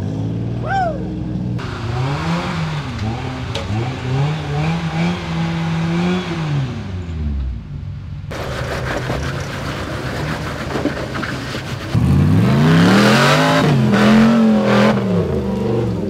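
Off-road 4x4 engines revving while crawling over rocks, the engine note rising and falling several times as the throttle is worked. About three quarters of the way through, a louder stretch of hard revving.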